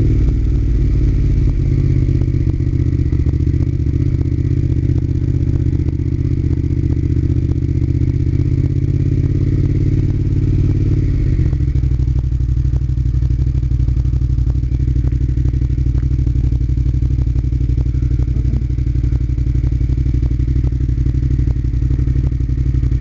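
Motorcycle engine running steadily while riding, its note dropping a little about eleven seconds in.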